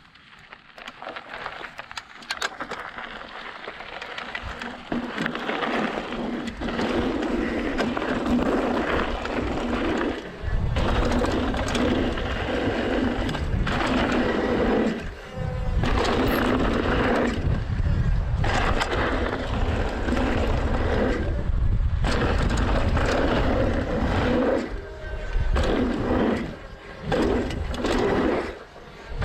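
Mountain bike riding down a dirt trail, heard through a GoPro Hero 7's microphones in wind-only mode under a foam Wind Slayer cover. Tyres roll over dirt and the bike rattles, under a deep wind rumble that builds over the first several seconds and eases off briefly a few times.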